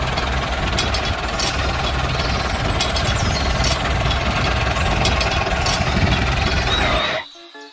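A small engine-driven machine running steadily with a rough, rattly note, which cuts off abruptly about seven seconds in.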